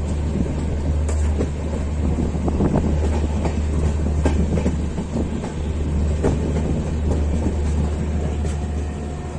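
Express passenger train running on the track: a steady low rumble with wheels clattering irregularly over rail joints.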